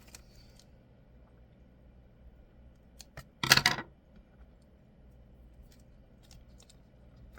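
Scissors cutting, with one short, loud, rasping cut about three and a half seconds in. A few faint clicks and handling sounds come before and after it.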